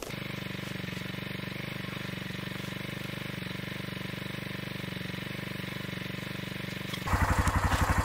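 ATV engine idling with a steady, even pulse. About seven seconds in it gets noticeably louder and more throbbing.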